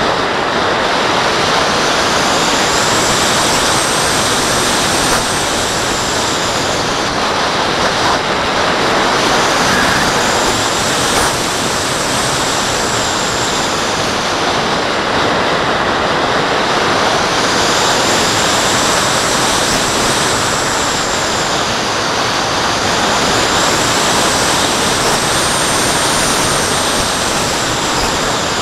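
Steady rush of airflow over a camera mounted on a radio-controlled glider in flight, with a faint high whistle that rises and falls about every seven or eight seconds.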